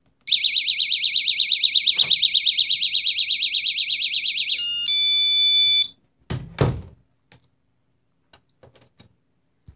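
Modern battery-powered magnetic-contact window alarm sounding a loud, fast warbling high-pitched siren, which switches to a steady tone about four and a half seconds in and cuts off just before six seconds. A couple of knocks follow.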